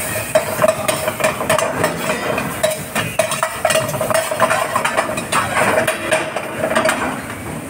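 Steel ladle stirring and scraping a tomato masala in a steel frying pan: repeated clinks and scrapes of metal on metal, with light sizzling. A steady hum runs underneath.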